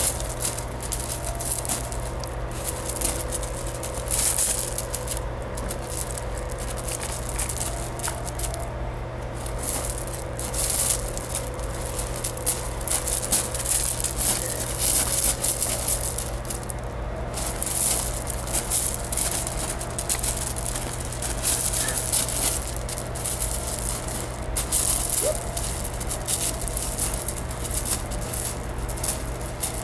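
Loose gravel crunching and rattling irregularly under a puppy's scrabbling paws and a person's shifting feet, over a steady low hum.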